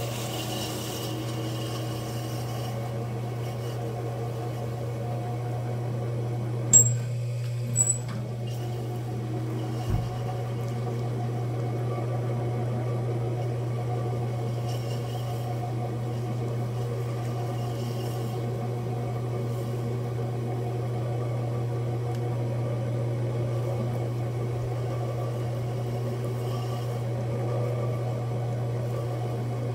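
Electric potter's wheel motor humming steadily as clay turns on the wheel head, with a few sharp clicks about seven to ten seconds in.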